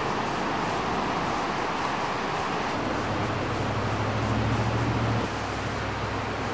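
Steady outdoor rushing noise, with a low engine-like hum that grows from about three seconds in and drops away suddenly just after five seconds.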